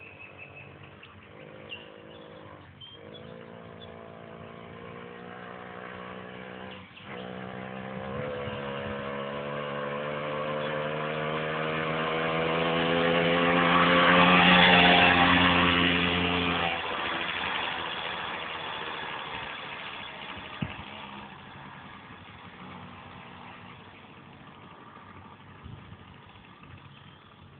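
Romet Ogar 200 moped's small two-stroke engine approaching under throttle, its note climbing and growing louder. It passes close about 15 s in, then fades into the distance.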